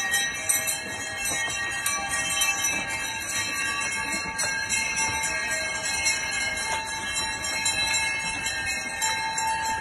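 Sleigh bells on horse harnesses jingling without a break as horse-drawn sleighs go by, with a few clear ringing tones held under the rattle.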